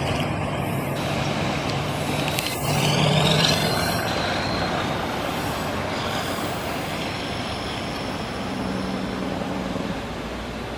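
GE U10B diesel-electric locomotive working at the rear of a loaded freight train, its engine running steadily over the rumble of wheels on the rails, fading slowly as it draws away. About three seconds in there is a brief louder stretch with a high sliding squeal.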